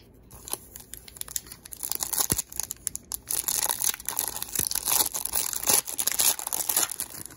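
Foil wrapper of a Topps baseball card pack crinkling and tearing as it is pulled open by hand. The crackling gets loud about two seconds in and runs on in quick, irregular crackles.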